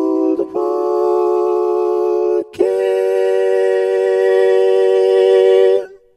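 A single singing voice run through the MuseAmi real-time vocal harmonizer, sustained notes stacked into chords: the voice plus harmony voices a third and a fifth above. It holds three steady chords with short breaks about half a second and two and a half seconds in. The last chord is held about three seconds and cuts off just before the end.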